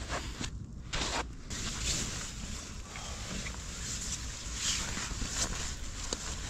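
Nylon fabric of a down sleeping bag and a jacket rustling and swishing as a person sits up in the bag and pulls the jacket on.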